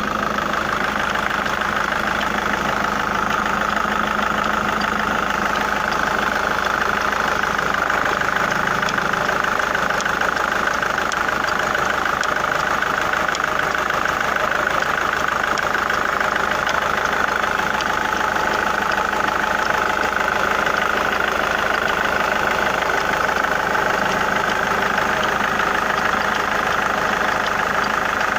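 Engine idling steadily with a fast, even knocking running through it: the knock the owner is recording.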